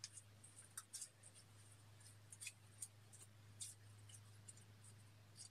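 Faint, scattered clicks and scrapes of a plastic spatula scooping paint out of a small jar, over a steady low hum.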